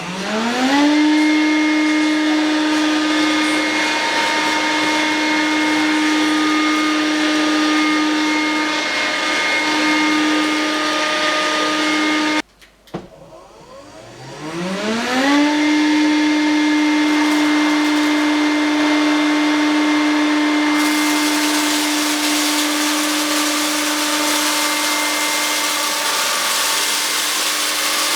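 Fortune Dragon cordless stick vacuum running: its motor spins up to a steady whine, cuts out abruptly about 12 seconds in, then spins up again and runs on. A louder hissing rush joins the whine about 21 seconds in.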